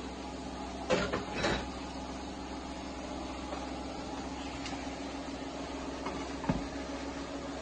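Steady low kitchen hum, with a couple of clatters about a second in and a single sharp knock later as a wooden spoon goes into the pan of rice.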